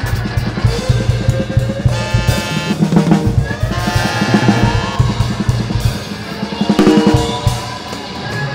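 Drum kit played in fast, dense strokes across drums and cymbals. Sustained electric guitar tones ring over the drums, some gliding upward in pitch.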